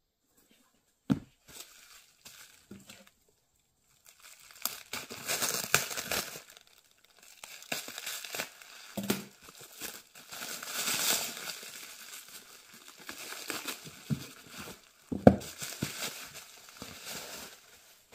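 Clear plastic wrap crinkling and crackling as a plastic-wrapped bundle of books is handled and pulled open, with a few knocks of books set down on a wooden table.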